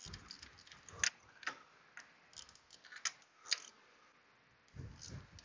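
Hand ratchet clicking in short irregular bursts as tight spark plugs are broken loose, with a low thump near the end.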